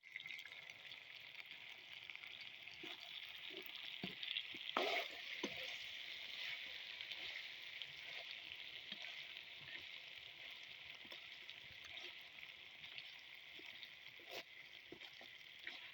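Chicken karahi sizzling in hot oil in a karahi pan: a steady frying hiss, with a few scattered clicks and knocks, the loudest about five seconds in.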